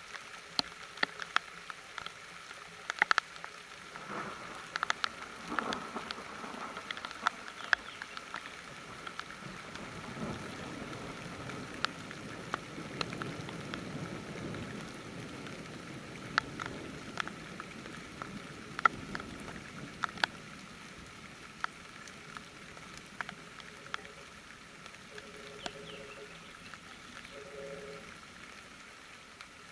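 Steady rain falling, with many individual drops tapping sharply close by. A low rumble swells and fades through the middle.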